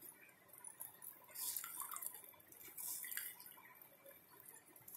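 Faint dripping and trickling of whey squeezed by hand out of a cotton cloth bundle of curdled milk (chhena) into a steel mesh strainer, in a few short spells.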